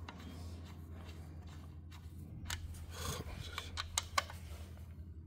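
Small metallic clicks and scrapes as a steel bolt is pushed and threaded by hand through an alternator's mounting bracket, with a run of sharp taps between about two and a half and four seconds in, over a steady low hum.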